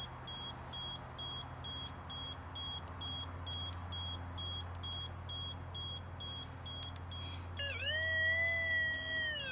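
Vivax-Metrotech VM-550 cable locator receiver beeping about three times a second, over a steady low hum. About eight seconds in, its signal tone comes in: it rises in pitch, holds, and falls away as the receiver picks up the 8 kHz locate signal on the buried power cable.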